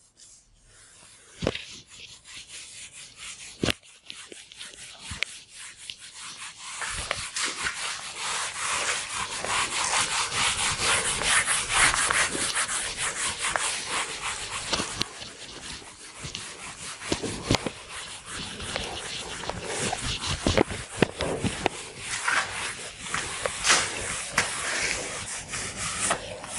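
Whiteboard eraser rubbed back and forth over a whiteboard, wiping off marker writing: a scrubbing hiss made of many quick strokes, louder from about seven seconds in, with two sharp knocks in the first few seconds.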